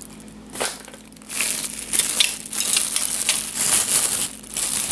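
Clear plastic bag crinkling and crackling as a diecast model airliner is handled and worked out of it. It is quieter for about the first second, then dense crinkling, with a short lull near the end.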